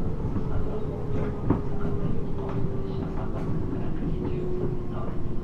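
Cabin interior of a 719 series electric multiple unit running on the rails: steady wheel and track rumble with scattered knocks and rattles from rough track, under a motor and gear whine that slowly drops in pitch as the train slows.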